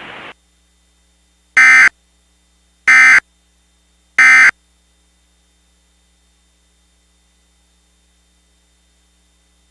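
Emergency Alert System end-of-message (EOM) code: three short, identical bursts of buzzing digital data about 1.3 seconds apart, marking the end of the alert.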